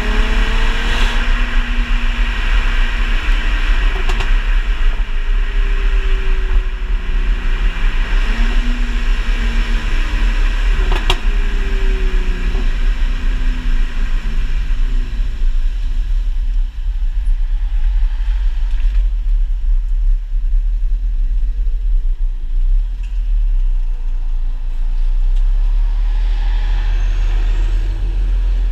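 Mercedes-Benz C350 coupe's V6 engine and exhaust while driving, its pitch rising and falling with the revs, over a heavy low rumble. A few sharp cracks stand out, at the start and once about a third of the way in: exhaust crackles from a Kleemann ECU tune, which still come two to three seconds late after lifting off the throttle.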